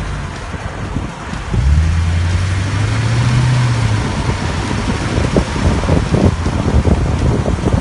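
A car engine hums up slightly in pitch for about two seconds, starting a second and a half in, then fades. A steady rushing noise like road or wind noise runs throughout, and scattered light knocks come in the second half.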